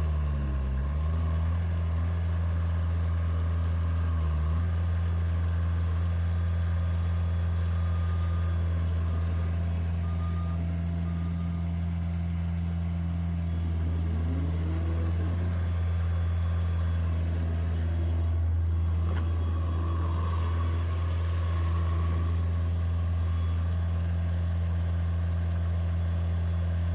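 Bobcat S100 skid steer's 34-horsepower diesel engine running at a steady speed, a constant low hum with no change in pitch.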